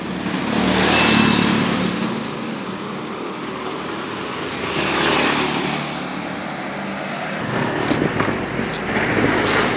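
Road traffic: motor vehicles passing by, with two louder passes about one second and five seconds in.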